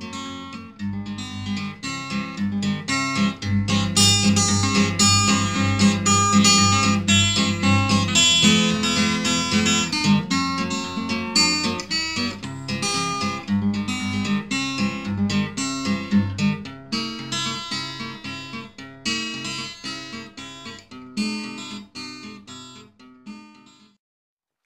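Background music: acoustic guitar playing, fading out near the end.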